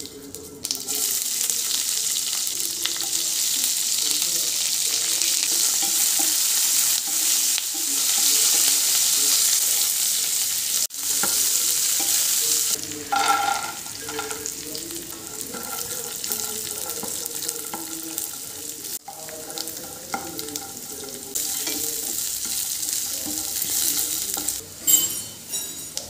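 Hot oil sizzling in a stainless steel frying pan as a tadka fries: mustard seeds at first, then onions, curry leaves and peanuts being stirred. The sizzle starts about a second in, is loudest through the first half and grows quieter after, with a few clinks near the end.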